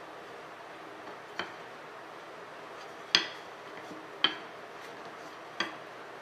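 Wooden rolling pin rolling out dough on a board. Over a faint steady hiss there are four sharp clicks, the two in the middle the loudest.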